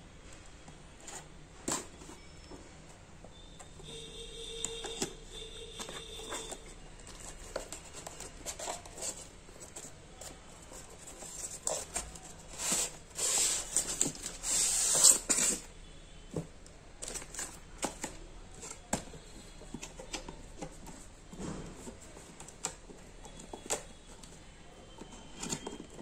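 A cardboard toy box being handled and opened: scattered clicks and rustles, with a longer, louder scraping rush about halfway through as the polystyrene insert slides out of the box.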